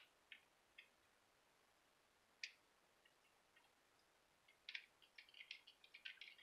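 Faint small clicks and taps of a soldering tool working at the joints of a circuit board: a few isolated ones, then a quick irregular run of them in the last couple of seconds.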